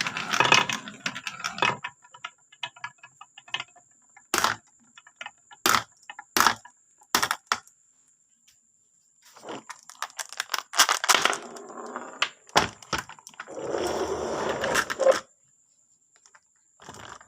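Marbles rolling and clacking down a marble run track. Rattling runs of rapid clicks alternate with single sharp clacks a second or so apart, and a steadier rolling rumble comes near the end.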